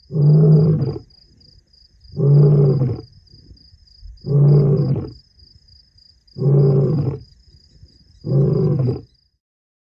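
Lion roaring at night: five deep roars about two seconds apart, with soft grunts between them. A fast, steady, high insect chirping runs underneath.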